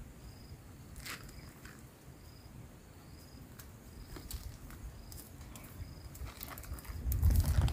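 An insect chirps steadily, short high chirps about once a second, over light footsteps on soil and plants. Near the end a loud low rumbling sets in as the camera is handled.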